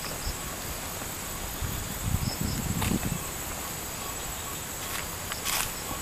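Steady high chirring of crickets, with uneven footsteps on a dirt path in the middle and a couple of short sharp clicks near the end.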